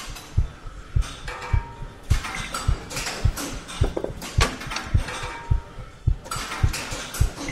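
A low thump repeating evenly about twice a second like a slow beat, under a layer of clattering clicks and rattles.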